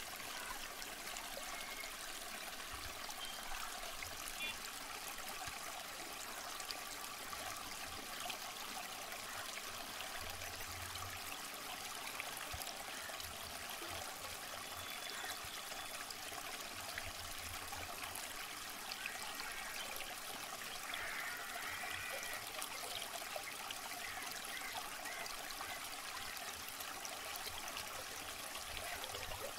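Water flowing and babbling steadily in a small stone-lined canal, swirling past a concrete wall.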